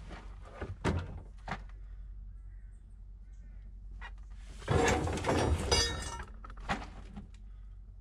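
Long plastic pipe being pulled along a dirt trench: a few knocks, then a loud scraping rustle for about a second and a half midway through as the pipe drags over soil and against other pipe, and one more knock.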